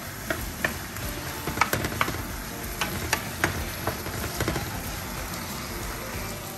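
Sliced smoke meat with honey sizzling as it browns in a nonstick skillet. Through the first four seconds or so a wooden spatula stirs it, giving a series of taps and scrapes against the pan; after that only the steady sizzle is left.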